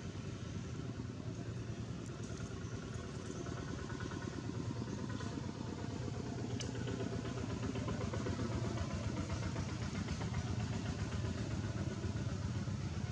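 A small engine idling steadily with an even low pulsing rumble, a little louder in the second half, and a single sharp click about six and a half seconds in.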